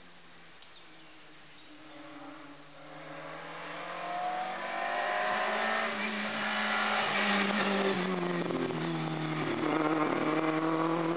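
Race car engine approaching and passing close at speed, its note growing louder from about two seconds in and rising, dipping and rising again as the driver works the throttle through the bend.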